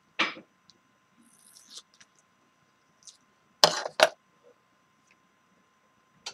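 Short knocks, clicks and clinks of small parts and tools being handled on a workbench, with two louder sharp knocks close together a little over halfway through.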